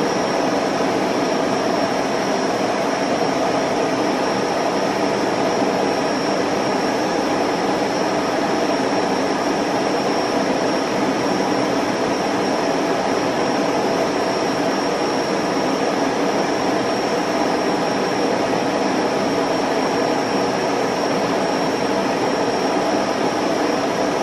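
Home-movie film projector running: a steady, unbroken whir of motor, fan and film transport that does not change.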